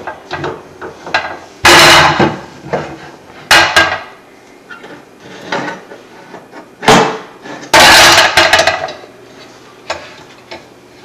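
A child banging and clattering kitchenware: a string of loud, irregular bangs with short ringing tails. The longest clatters come about two seconds in and again around eight seconds, with lighter knocks between.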